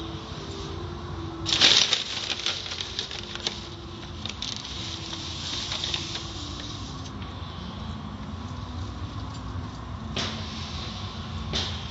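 Automatic tunnel car wash heard from inside the car: bursts of water spray and cloth wash strips slapping and swishing against the glass, loudest about two seconds in and again briefly twice near the end, over a steady low rumble.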